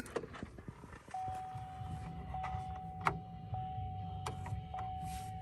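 A GM truck's dashboard warning chime sounding after the key is turned, one steady tone repeating about every second with barely a break, over a low hum. Two sharp clicks, about three and four seconds in, from the new dimmer switch being worked.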